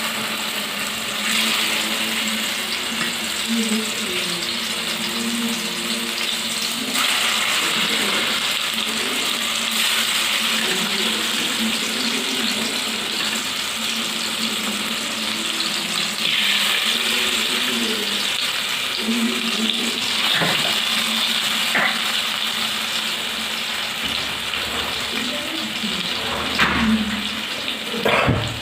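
Chicken pieces frying in hot oil in a kadai: a steady loud sizzle, with a few sharp knocks in the last several seconds.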